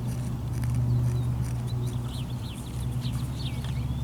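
A steady low hum with small birds chirping in quick short notes from about halfway through.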